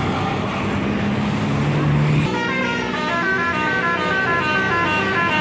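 A bus's Basuri 'telolet' musical air horn playing a fast run of stepped notes, up and down several times a second, starting about two seconds in, over the bus engine running and traffic noise.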